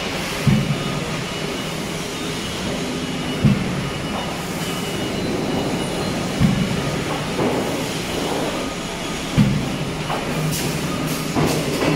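Aluminium circle blanking line running: a steady machine hum, with a heavy thud about every three seconds, four in all, as the punch press blanks out cooking-pot circles.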